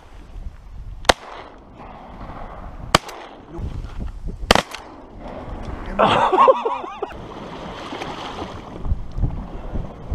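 Three shotgun shots, spaced about one and a half to two seconds apart. About six seconds in comes a short wavering call.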